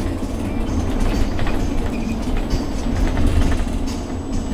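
Steady low road rumble and running noise heard from inside the cabin of a moving passenger vehicle.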